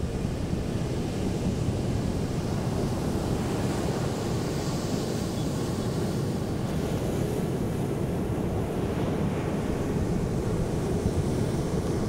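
Sea surf breaking on a sandy beach, a steady rushing wash, with wind buffeting the microphone.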